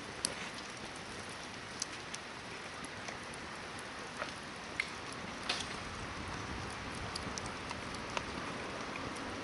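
Hardwood campfire burning: a steady hiss with sharp crackles and pops scattered through it, the loudest about five and a half seconds in.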